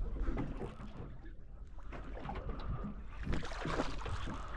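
Wind buffeting the microphone over water moving around a small boat, with a steady low rumble and a few faint ticks.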